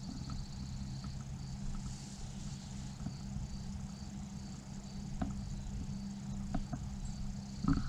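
Quiet outdoor ambience: a faint, high chirp repeating about twice a second over a low steady hum, with a few soft clicks.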